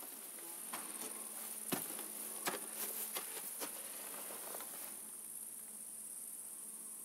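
Steady, high-pitched chorus of insects in summer vegetation. Over the first five seconds it is broken by scattered sharp clicks and scuffs, the loudest of them near the two- and two-and-a-half-second marks.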